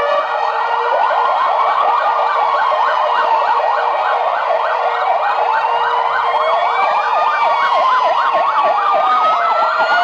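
Several ambulance sirens sounding at once as a column of ambulances drives past: a fast yelp, about four rises a second, over slower wails that rise and fall.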